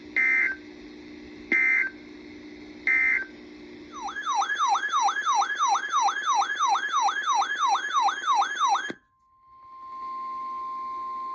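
Emergency Alert System signalling: three short buzzy digital data bursts, then a loud siren-like tone sweeping rapidly up and down about three times a second for some five seconds. It cuts off, and after a brief gap a single steady alert tone near 1 kHz comes in.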